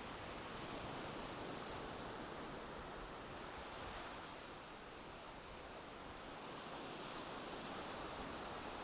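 Steady rushing ambient noise with no distinct events, dipping slightly a little past the middle.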